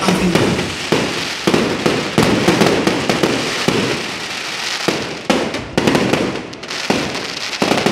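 Fireworks display: aerial shells bursting in a rapid run of sharp bangs, a dozen or so, over a continuous dense noise.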